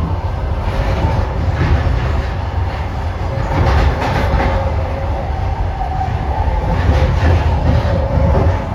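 Passenger train running on the track: a steady low rumble of the wheels and bogies with the clickety-clack of wheels over rail joints, and a faint high whine over it.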